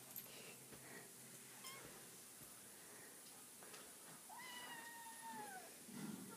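Domestic cat giving one long drawn-out meow about four seconds in, its pitch sliding slowly downward to the end, after a brief chirp earlier on. A soft rustle of handling follows near the end.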